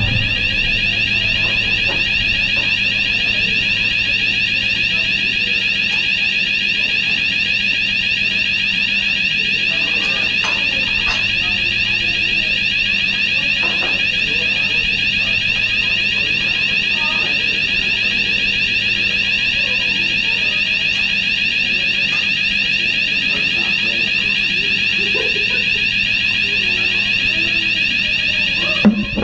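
Hotel fire alarm sounder going off continuously with a high electronic tone and a fast regular flutter: a false alarm.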